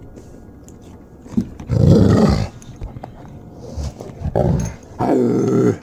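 A dog lying on its back vocalizing while its belly is rubbed, the playful 'talking back' kind of dog noise: one loud drawn-out call about two seconds in and two more close together near the end, with softer ones between.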